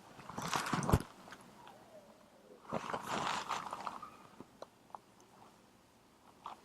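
Clothing-rub noise from a clip-on microphone brushing against a dress: two short bursts of scratchy rustling, the first in the first second and the second about three seconds in, with a few small clicks between.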